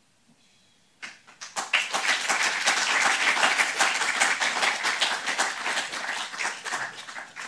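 Audience applauding: many hands clapping, starting about a second in, swelling quickly, and dying away near the end.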